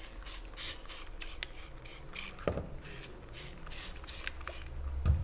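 Soft rustling and rubbing as hands handle a cat's fur and paw, short scratchy noises throughout, with one sharper click about halfway through.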